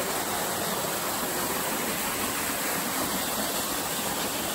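Waterfall on a creek: a steady, even rush of falling water.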